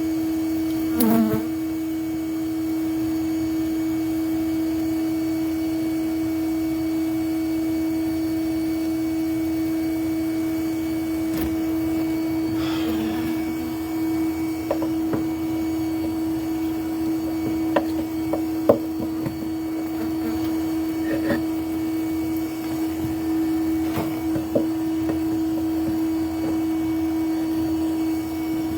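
Honeybees buzzing over a steady machine hum, with scattered light knocks and scrapes as the hive is worked.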